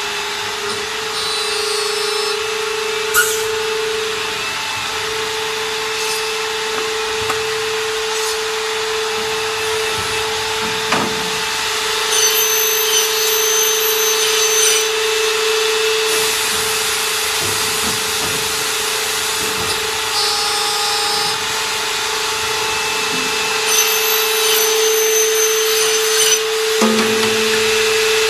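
Automatic CNC aluminium profile machining and cutting line running: a steady machine hum with a constant whine. A higher-pitched whine comes in twice for a few seconds, about midway and near the end, and there are a few sharp knocks.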